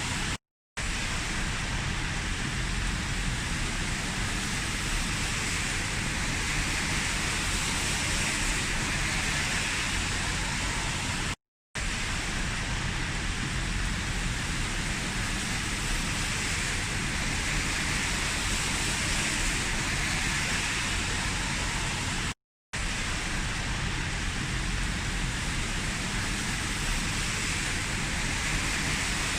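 Heavy rain falling steadily, an even hiss with no lulls. It cuts out to silence for a split second three times, about every eleven seconds.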